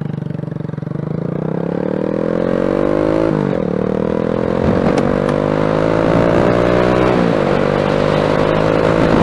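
Wolf Striker 125cc motorcycle engine accelerating hard, its note climbing steadily and dropping sharply twice, about three and seven seconds in, as it shifts up, with wind rush on the microphone growing with speed. It is pulling cleanly on its newly replaced carburetor.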